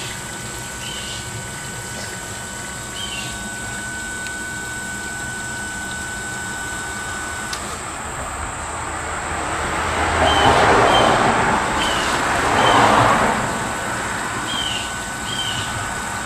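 2002 Ford F-150 Lightning's electric intercooler pump running with a steady thin whine while the freshly filled intercooler coolant circulates. The whine stops about halfway through. Two louder swells of rushing, watery noise follow, with repeated short chirps throughout.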